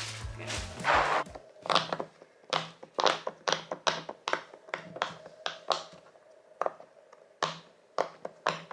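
Silicone pop-it fidget toy being pressed bubble by bubble: a run of short, soft pops, about two or three a second.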